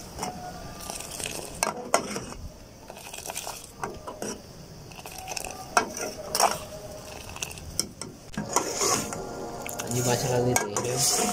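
Steel ladle stirring and clinking against an aluminium saucepan of boiling Kashmiri green tea (kahwa) and whole spices, over the bubbling of the boil. The clinks come at irregular moments.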